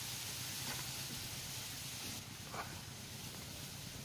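Quiet pondside outdoor ambience: a steady high hiss with a few faint ticks and one brief faint sound about two and a half seconds in.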